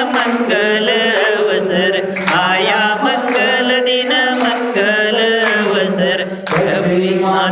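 A man singing a devotional hymn into a microphone, amplified, with people clapping along about once a second.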